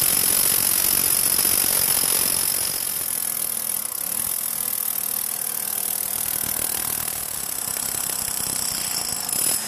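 Corded rotary hammer drill with a 1-inch by 36-inch bit hammering diagonally through the asphalt road and ground toward a manhole: continuous rapid hammering, a little quieter after about two and a half seconds.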